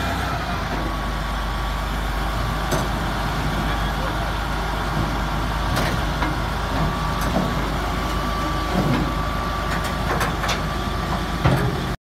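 Caterpillar D8N bulldozer's diesel engine running steadily at low speed on the lowbed trailer, with a thin steady whine through most of it and a few sharp knocks now and then.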